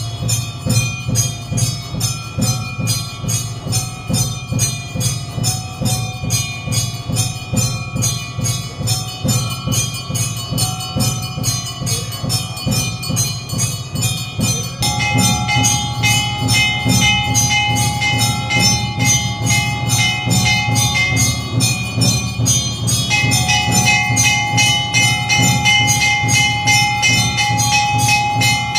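Brass temple hand bell rung rapidly and continuously during aarti, a fast even jangle of ringing strikes. About halfway through the ringing takes on a clearer, higher held tone.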